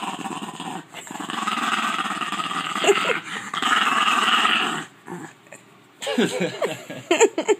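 French bulldog making annoyed growling grumbles: three long, rough, drawn-out growls in a row, then after a short pause a string of short whining grumbles that bend up and down in pitch near the end.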